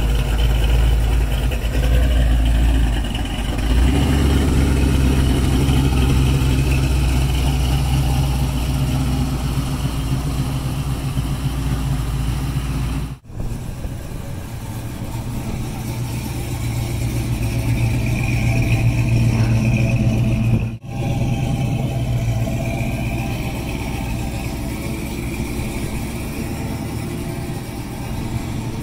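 Classic American cars' engines running at low speed as they roll past: a black 1955 Chevrolet two-door, then a 1970–71 Ford Torino, with a deep, steady exhaust note. The sound breaks off sharply twice, a little before halfway and again about two-thirds of the way through.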